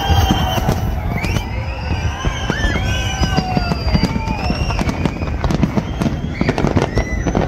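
Street celebration crowd: many overlapping whistles and shouts gliding up and down over a dense, continuous crackle of pops.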